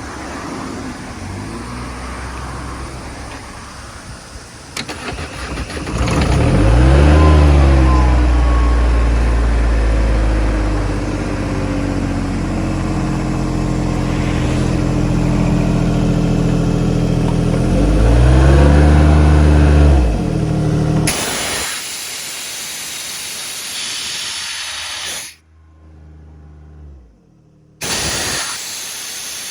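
Airman PDS50S diesel engine-driven air compressor running. Its engine speed rises about six seconds in and holds, then swells again around eighteen seconds. About twenty-one seconds in the engine falls away under a loud hiss that cuts off abruptly.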